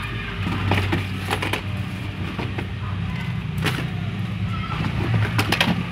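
Small cardboard retail boxes being handled and shuffled in a pile, making a few light clicks and knocks as they tap against each other, over a steady low hum.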